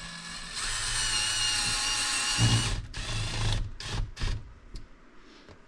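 Cordless drill driving a screw: the motor whines steadily for about two seconds, then comes a louder, lower stretch as the screw seats, followed by a few sharp clicks.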